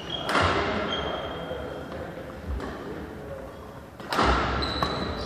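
Badminton rally in a large sports hall: two sharp racket strikes on the shuttlecock about four seconds apart, each ringing out in the hall, with short high sneaker squeaks on the wooden court between them.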